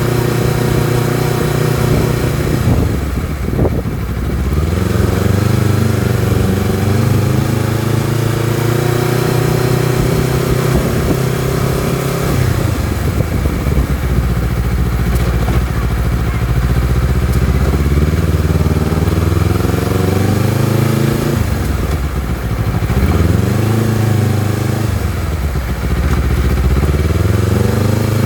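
Honda CBR250RR's parallel-twin engine under way, its revs rising and falling with the throttle. The pitch dips a few seconds in, climbs steadily, drops suddenly about twelve seconds in as if on a gear change, then falls and climbs again twice near the end.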